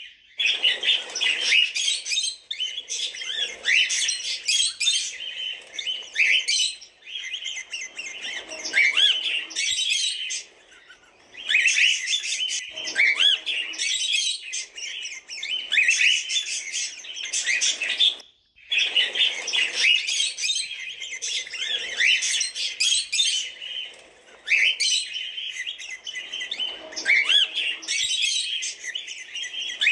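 Cockatiels chirping in a dense, continuous stream of short calls, falling quiet briefly about ten seconds in and again around eighteen seconds.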